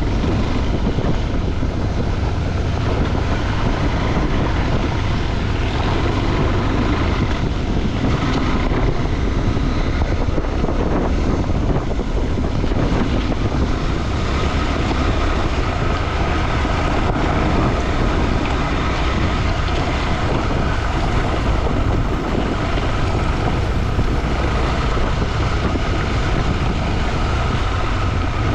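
A motorcycle being ridden at a steady pace, its engine running under heavy wind buffeting on the microphone.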